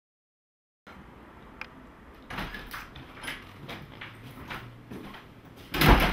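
Silence, then a bedroom door opening and footsteps on a hard floor, with a loud thump near the end as the door is shut.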